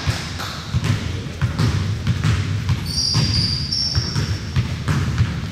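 Basketball game play: the ball bouncing and players' feet thudding on the court, with a few short sneaker squeaks about halfway through.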